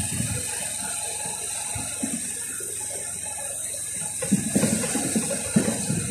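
Motorcycle rolling downhill: a steady mechanical rattle over a constant hiss, with a burst of louder low rumbling about four to five seconds in.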